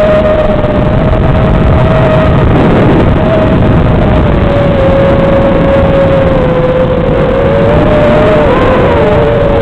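Brushless motors of an iFlight Nazgul FPV quadcopter whining in flight, the pitch drifting slowly lower and then splitting into two separate tones near the end, over a heavy rushing noise.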